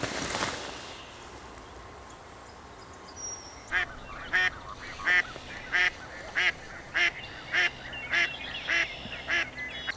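Waterfowl calling from the marsh: a series of about ten evenly spaced honking quacks, starting a few seconds in and running for about six seconds. A brief rush of wind noise on the microphone at the start.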